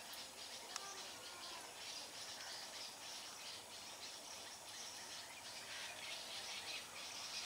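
Faint outdoor ambience of birds chirping and twittering, made of many quick high notes over a steady hiss.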